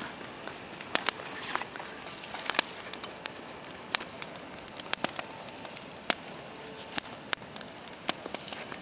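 Wood campfire crackling: irregular sharp pops and snaps over a steady hiss.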